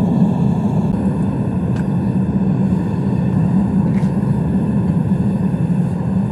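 Gas-fired metal-melting furnace running on one burner: a steady, loud rushing noise. Two faint light clicks come about two and four seconds in.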